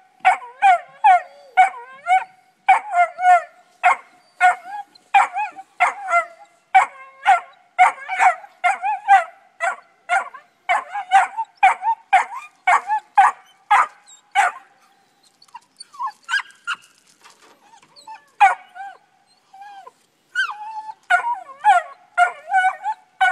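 Black Mouth Cur puppies barking treed, a string of quick, high-pitched yipping barks about two a second. The barking thins out after about 15 seconds and picks up again near the end.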